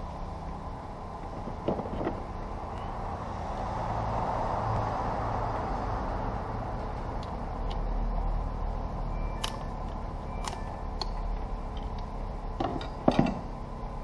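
Hand work on a car's intake manifold: scattered sharp clicks and clacks of plastic connectors, fittings and a hand tool being worked loose, over a steady workshop hum. The loudest clacks come near the end.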